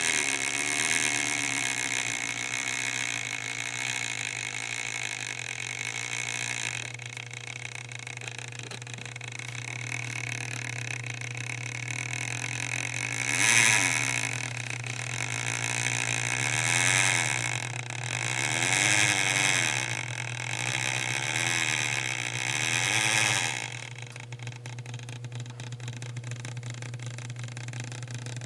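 Lindberg HO-scale switcher locomotive running slowly on track, its motor and worn reduction gears whirring over a steady low hum. The whir swells several times, rising and falling in pitch, then settles quieter near the end.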